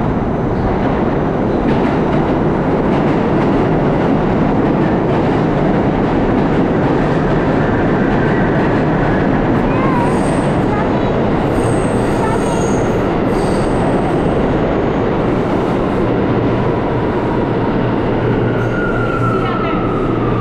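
New York City subway train running, a loud steady rumble of wheels on rail. High-pitched wheel squeal comes in about halfway through, and a falling whine near the end.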